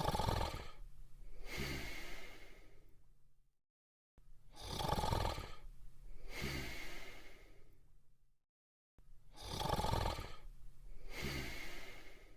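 Cartoon snoring sound effect repeating three times, about every five seconds. Each snore is a loud in-breath followed by a longer out-breath, with a brief silence before the next.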